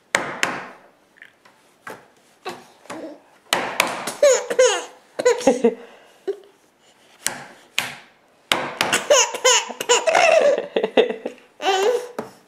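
A nine-month-old baby's belly laughter, coming in bursts, each set off by sharp hand slaps on a tabletop.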